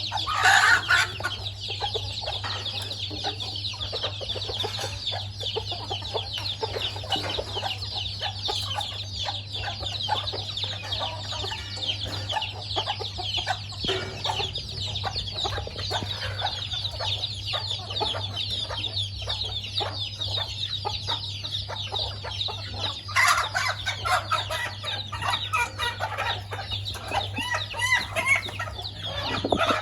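Chickens clucking as they feed, over a steady high-pitched hiss and a low hum. Louder outbursts come near the start and twice toward the end.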